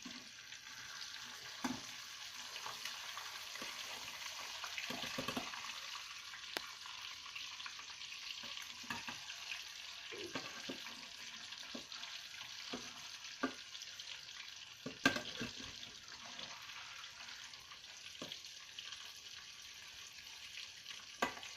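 Flour-coated tilapia fillet frying in hot oil in a pan: a steady sizzle with scattered pops and clicks, the sharpest about fifteen seconds in.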